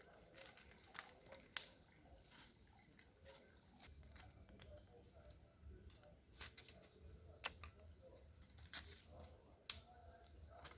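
Dry leaves and twigs being handled and laid in a fire pit: faint rustling with a few scattered sharp snaps, the loudest near the end.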